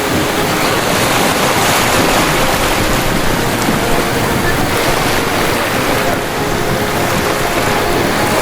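Ocean surf rushing steadily, waves washing in without a break.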